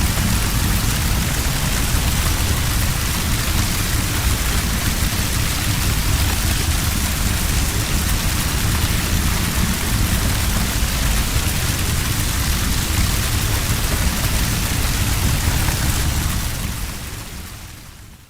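Flames of a burst Molotov cocktail burning: a steady rushing noise with a deep rumble underneath, fading out near the end.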